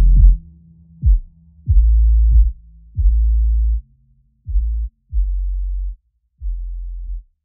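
Electronic music that is mostly deep bass: a run of low notes, each starting with a quick downward pitch drop, coming about once a second and growing quieter toward the end.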